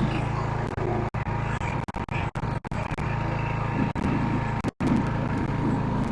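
Simplicity rear-engine riding mower's engine running steadily, broken by several sudden brief cuts to silence.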